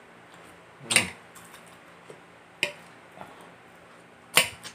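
Three short, sharp mouth sounds of eating by hand: sucking and smacking as the last bits of meat are pulled off a fish bone.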